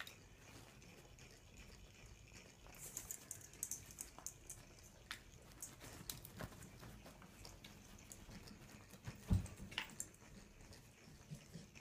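Faint scattered clicks and rustling of a golden retriever moving about on a bed, with one low thump about nine seconds in as she jumps down to the floor.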